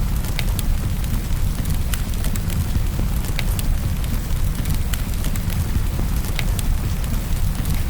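Wood fire crackling with scattered sharp pops, over a steady low sound of rain.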